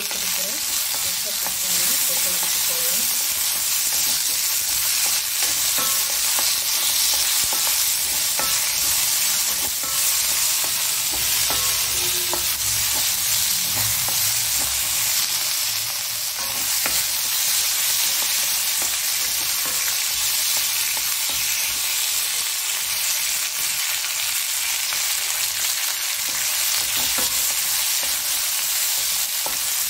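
Shallots, garlic and green tomato pieces sizzling steadily in hot oil in an iron kadai. A wooden spatula stirs them, with scattered light scrapes and knocks against the pan.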